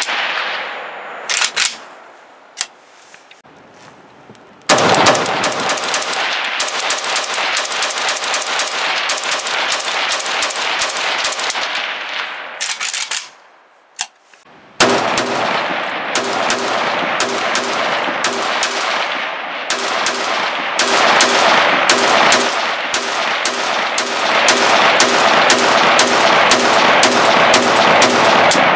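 Arsenal SA RPK-5, a semi-automatic RPK-pattern rifle in 5.56 NATO, firing. A few single shots come near the start, then a long rapid string of shots, a short pause, and a second long rapid string.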